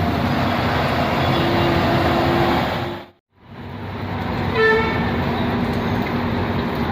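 Steady noise of heavy rain and strong wind with road traffic. A vehicle horn gives a short toot about four and a half seconds in. The sound drops out for a moment about three seconds in.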